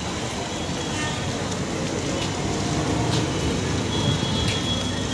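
Road traffic noise: a steady mix of vehicles running on the road, with a brief high tone about four seconds in.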